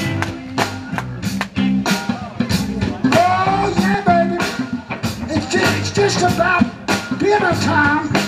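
Live blues band playing the intro groove of a song, with drums keeping a steady beat under a walking bass line and a wavering lead line in the middle.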